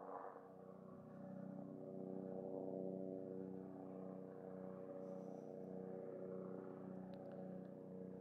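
Bell 407 helicopter in flight, its turboshaft engine and four-blade rotor giving a steady hum made of several held tones with a slight regular pulsing. It swells over the first couple of seconds, then holds level.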